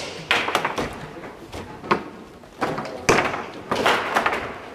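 Garlando foosball table in fast play: irregular sharp clacks and knocks from the ball, the plastic figures and the rods, several in quick succession at times.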